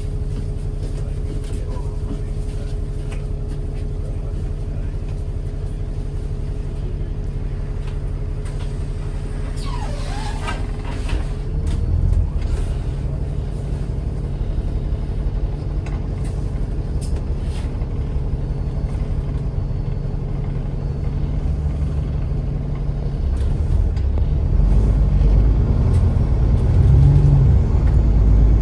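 Alexander Dennis Enviro 400 MMC double-decker bus with a ZF automatic gearbox running at a steady engine note. About twelve seconds in the note changes, and it grows louder and rises in pitch near the end as the bus accelerates.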